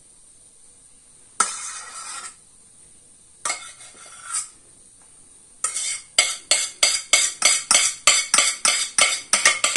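Spoon scraping the last tomato sauce out of a metal saucepan: two short scrapes, then from about halfway a quick run of clinking scrapes against the pan, about four a second.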